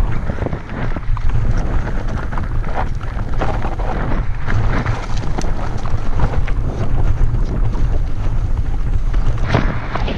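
Wind rumbling on a GoPro's microphone as a mountain bike rides down a loose, stony trail, with frequent clicks and knocks from the tyres and bike over the stones.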